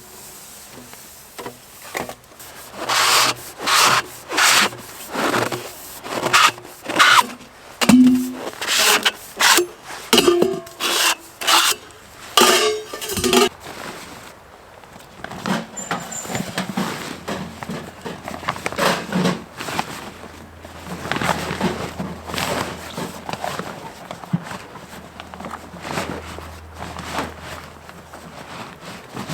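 Rhythmic rasping strokes, about one or two a second for some ten seconds, like a hand saw working through wood, then fainter, irregular scraping and rubbing.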